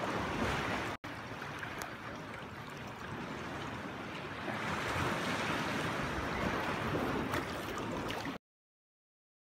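Shallow surf washing and water sloshing around people wading waist-deep in the sea. The sound drops out for an instant about a second in and cuts off abruptly near the end.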